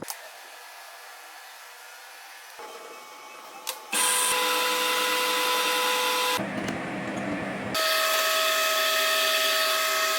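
A small electric power tool motor running with a steady whine over a harsh hiss. It starts abruptly about four seconds in, after a quiet stretch and a single click, then drops out briefly and runs again at a slightly higher pitch.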